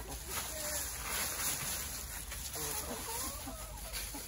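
A flock of hens clucking with many short calls, over the rustle of dry leaves as they scratch through them.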